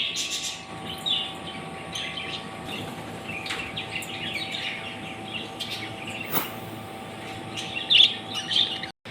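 Several small birds chirping and tweeting over one another, with a steady faint hum underneath.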